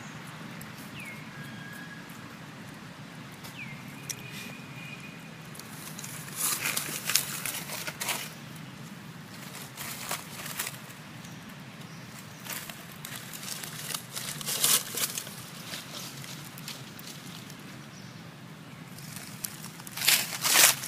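Dry fallen leaves crackling and rustling under movement in irregular bursts, starting about six seconds in and loudest near the end.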